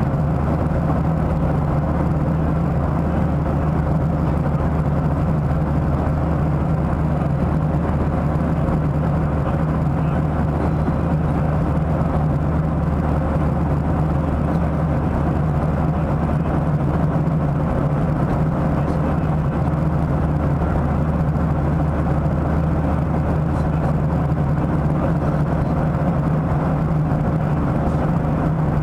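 Steady cabin noise of a Boeing 737-700 in high-altitude flight, heard from inside the cabin: the low drone of its CFM56 turbofan engines mixed with the rush of air over the fuselage, unchanging throughout.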